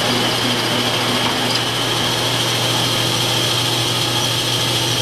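Metal lathe running steadily while a carbide tool cuts a spinning steel workpiece under flood coolant: a constant low hum with a steady high whine over a noisy hiss.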